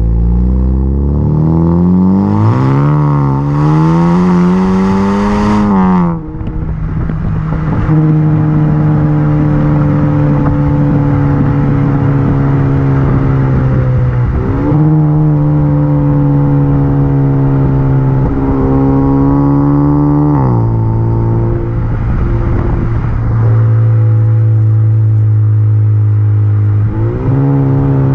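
Exhaust note of a Honda Accord 2.0T's turbocharged 2.0-litre four-cylinder through a Thermal R&D performance exhaust with PRL front pipe and RV6 catted downpipe, heard while driving. It climbs in pitch under acceleration with a hiss over it, drops sharply, then settles into a steady drone, with a few sudden drops in pitch and one short climb.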